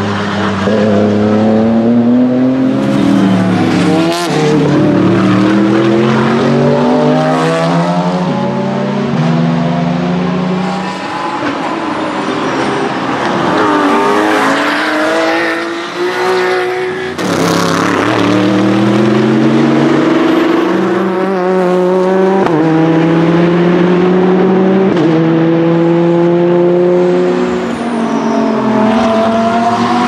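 GT race cars accelerating out of a corner, engines climbing through the gears with a string of quick upshifts, each shift dropping the pitch before it rises again. There are two such runs, the second starting after a short dip about halfway through.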